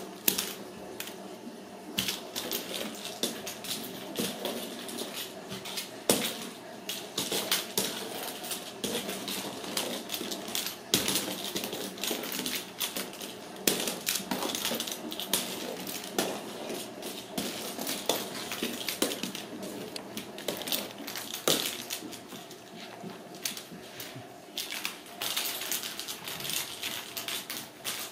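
Kittens playing with a small ball on a hardwood floor: an irregular run of clicks, taps and rattles from the ball and their paws, some louder knocks among them.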